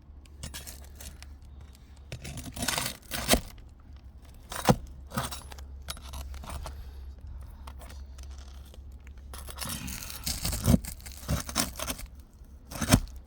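A hand tool scrapes and clicks against asphalt roof shingles as their nails are worked loose and pulled. There are several sharp clicks and two stretches of scraping, over a steady low rumble.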